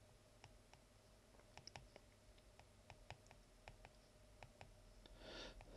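Faint, irregular clicks of a stylus tip tapping on an iPad's glass screen while writing numbers by hand, with a short soft hiss near the end.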